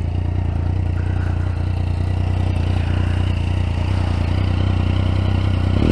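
Motorcycle with an aftermarket Akrapovic exhaust idling steadily, a little louder toward the end; the riders judge it quite a normal sound and not a bothersome one.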